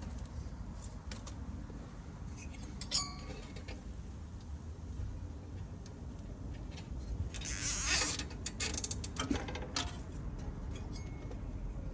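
Metallic clinks and jingling rattles over a steady low rumble: a sharp clink with a short ring about three seconds in, then a louder burst of rattling about eight seconds in.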